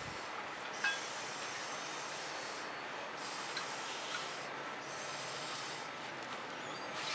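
Breath blown through a drinking straw to push wet fluid acrylic paint across a canvas, in several long breathy puffs of a second or two with short pauses between.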